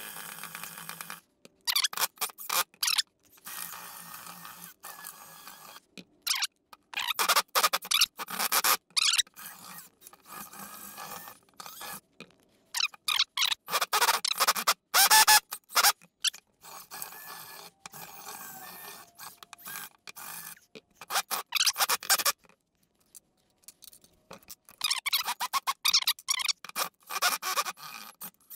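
A cordless drill and then a Porter-Cable impact driver run in short, repeated bursts with the bit slipping and grinding in the heads of wood screws, deliberately chattering and stripping them out. There is a short lull near the end before a last run of bursts.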